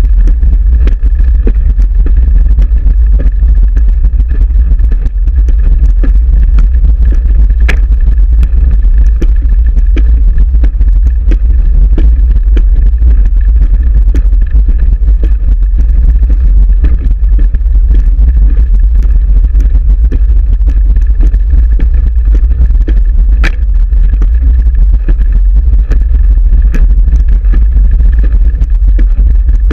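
Steady, heavy wind rumble on a camera mounted on a racing wheelchair moving fast round a track, mixed with the rattle of the chair's wheels and frame, and a few sharp clicks.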